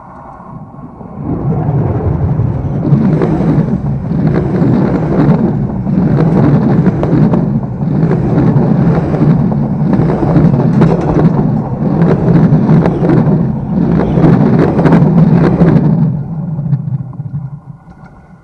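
Metre-gauge train rolling directly over a microphone lying between the rails: a loud rumble of wheels on rail with a rhythmic clatter recurring about every second and a half as the wheelsets pass, dying away after about sixteen seconds as the last coach moves off.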